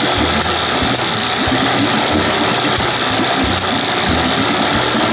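Small two-cylinder engine running, with a low, uneven pulsing beat and a few faint sharp ticks. It has just had a spark plug thread insert fitted; it sounds better but still shows the same fault, which the owner takes for no fuel reaching the cylinder.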